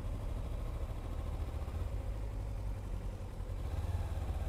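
Motorcycle engine idling and creeping along in stop-and-go traffic, a steady low rumble.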